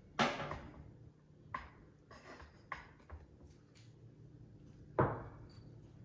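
Handling noises from a hand coffee grinder being worked on: a sharp knock just after the start and another about five seconds in, with a few light clicks between.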